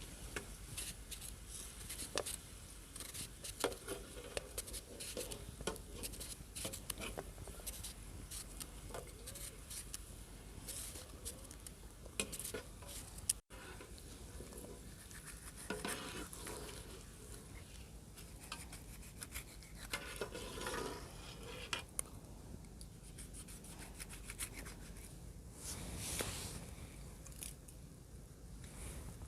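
Faint kitchen handling sounds: scattered small clicks, scrapes and clinks of utensils and dishes.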